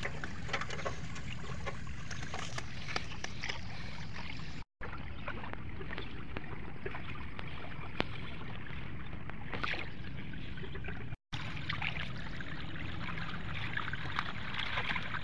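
Water trickling and sloshing as bamboo fish traps are drained and handled in shallow floodwater, with small splashes and clicks over a steady low rumble. The sound cuts out briefly twice.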